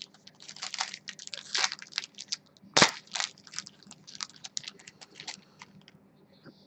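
Trading card packaging crinkling and clicking irregularly as it is handled, with one sharper click about three seconds in.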